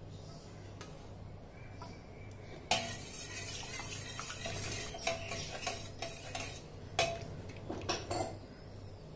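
Steel spoon stirring milk in a steel pot, scraping and clinking against the sides and bottom. It starts with a sharp clink about three seconds in and goes on for about six seconds, with a few louder clinks near the end.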